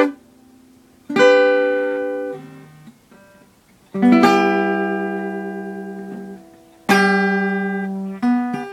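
Acoustic guitar played slowly: four plucked notes or chords, each struck and left to ring and fade. One comes about a second in, a long-ringing one about four seconds in, another near seven seconds, and a shorter one near the end.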